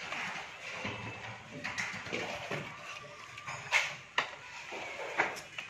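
Wiring work inside an electrical distribution board: hands and tools handling wires and the RCCB give three sharp clicks in the second half, over faint background chatter.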